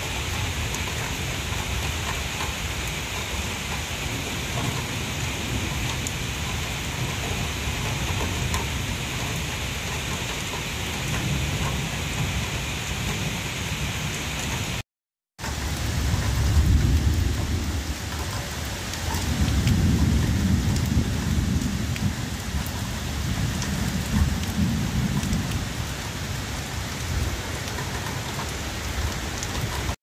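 Steady rain falling on leaves and grass. The sound cuts out for about half a second midway, and afterwards deep rumbles swell up several times under the rain.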